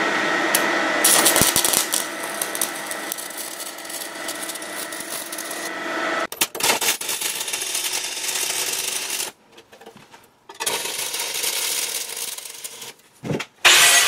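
Stick (arc) welder crackling and sputtering as the electrode lays a bead on steel, stopping briefly twice.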